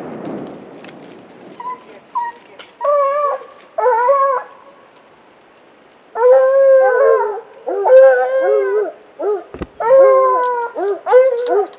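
Lion hounds baying and howling at a treed mountain lion: long drawn-out bays that bend in pitch, a few at first and then a loud, nearly continuous chorus from about six seconds in. At the start, the echo of a gunshot dies away.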